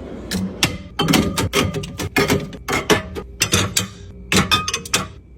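Drink bottles and cans being set into a mini fridge, a quick irregular run of clinks and knocks that stops near the end.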